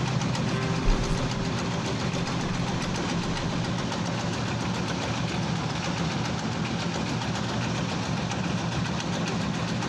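Tobacco slicing machine running steadily, a mechanical drone with a fast, even pulse; a single thump about a second in.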